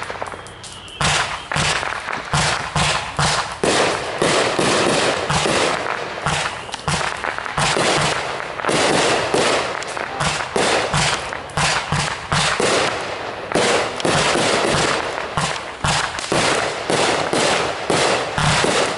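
Consumer aerial fireworks going off in quick succession: a dense, continuous barrage of sharp bangs, several a second, with crackling between them.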